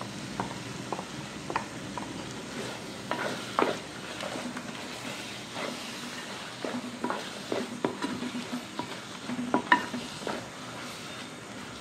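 Wooden spatula stirring a thick ground-coconut paste into sizzling masala in a metal pot, with irregular knocks and scrapes of the spatula against the pot over a steady low sizzle.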